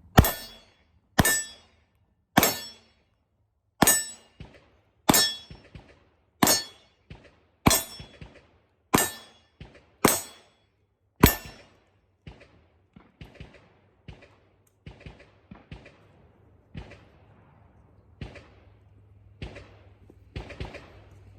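Ten handgun shots fired one after another at a steady pace, about one every 1.2 seconds, each with a brief ring. After them comes a run of fainter, irregular knocks.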